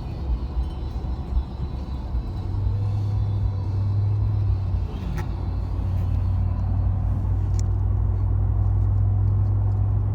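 Steady low rumble of a vehicle heard from inside, with a strong low hum that comes in about two seconds in and holds steady.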